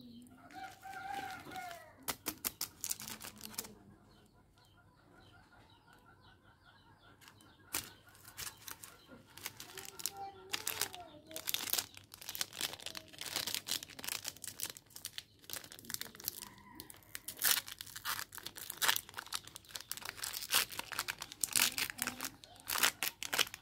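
Chocolate bar wrapper being torn open by hand, then the silver foil inner wrap crinkled and crackled in quick, dense bursts of rustling through most of the second half. A brief pitched call, like a voice or a bird, sounds in the first two seconds.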